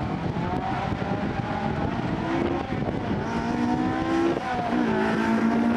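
Competition car's engine revving hard through a gymkhana run, its pitch climbing and dropping again and again as the driver accelerates, lifts and brakes between the course's turns. Heavy wind buffets the microphone under it.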